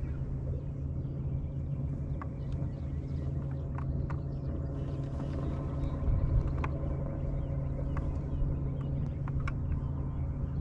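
Boat motor running steadily, a low hum, with scattered faint ticks above it.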